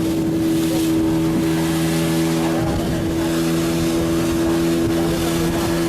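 Fishing boat's engine running steadily at a constant speed, a loud even drone with a fixed pitch.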